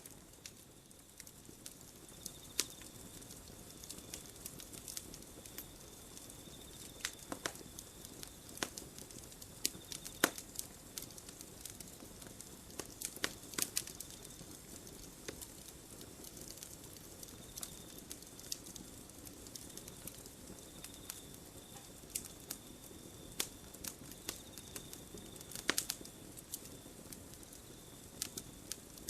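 Campfire of burning wood crackling, with irregular sharp pops and snaps over a soft steady hiss; the loudest pops come about ten seconds in, around thirteen to fourteen seconds, and near twenty-six seconds.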